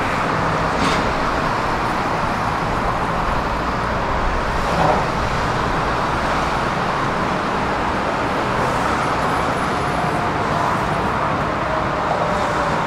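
Steady road traffic noise from cars and lorries passing on a busy road, with a brief knock about five seconds in.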